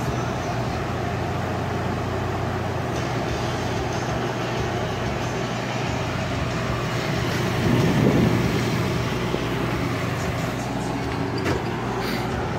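A 1966 Admiral Royal 106 air conditioner running: its fan blowing steadily over a constant low hum. The sound swells briefly about eight seconds in, and there is a light click near the end.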